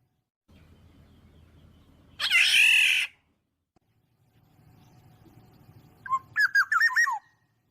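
Black-naped oriole (kilyawan) calls from a recording used as a hunting lure: one harsh, nasal squawk, then near the end a quick run of about six short whistled notes that hook downward.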